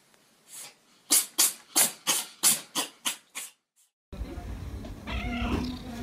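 Cat sneezing in a rapid fit: about eight sharp sneezes, roughly three a second, each a little weaker than the last.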